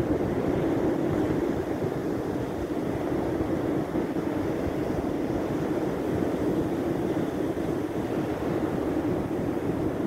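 Steady wind on the microphone over the rush of breaking surf, an even noise without breaks.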